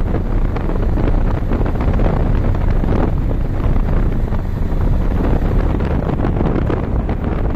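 Steady wind buffeting and rumbling on the microphone of a fast-moving vehicle on an open road, with no clear engine note.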